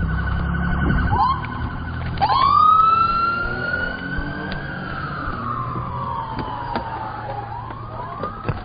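Police car electronic siren: a fast warbling yelp, a couple of short chirps, then a long wail that rises and slowly falls before starting to rise again near the end. There is low vehicle engine rumble underneath in the first second.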